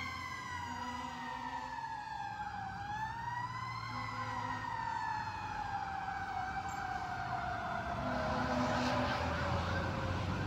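Fire engine siren sounding as the truck pulls away: its pitch dips, rises once, then slides slowly and steadily downward. A low rumble of engine and traffic runs underneath.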